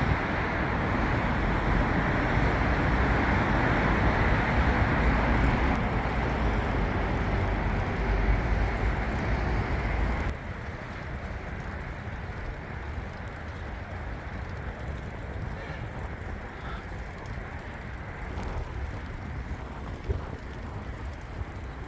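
Steady rushing ride noise of a bicycle being ridden, wind and rolling noise on the microphone. About ten seconds in it drops sharply to a quieter steady rush.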